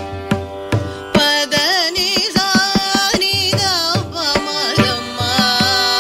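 Carnatic concert music in raga Shankarabharanam: mridangam strokes over a steady drone, then about a second in a heavily ornamented melody of sliding, wavering pitches comes in over the drum.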